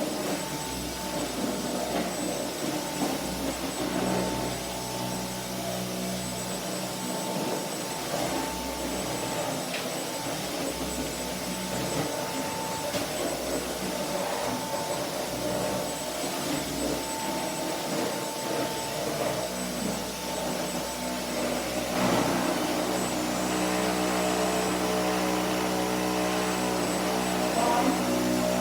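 Vacuum cleaner running steadily with a continuous motor hum, growing a little louder about three-quarters of the way through.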